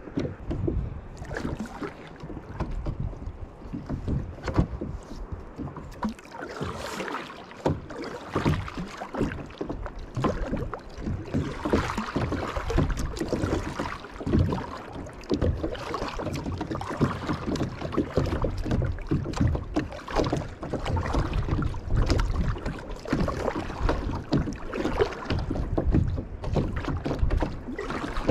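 Double-bladed kayak paddle dipping and pulling through the water in repeated strokes, with water splashing and sloshing against the plastic hull, over a low rumble of wind on the microphone.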